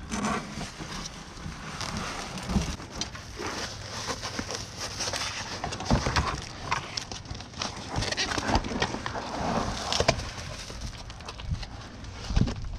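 A Mercedes W126's old one-piece floor carpet and its stiff backing being pulled and dragged out of the car: continuous rustling and crackling with many small snaps and scrapes, and a few louder knocks.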